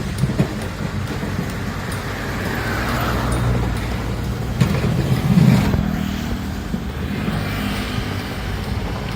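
Heavy machinery's engine running with a steady low drone that swells louder about five seconds in, with a whine that slides up and down in pitch and a few knocks.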